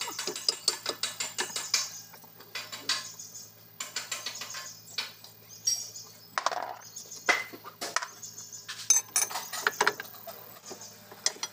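Ratchet wrench clicking rapidly for about two seconds as a bolt is turned, then scattered metallic clinks and knocks of wrenches on steel.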